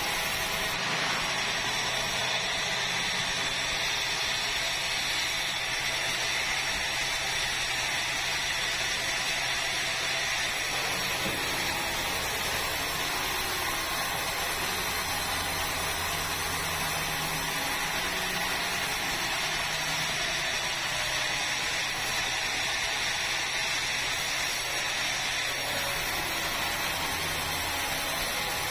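Large sawmill band saw running steadily as it cuts a big red meranti log lengthwise into a slab.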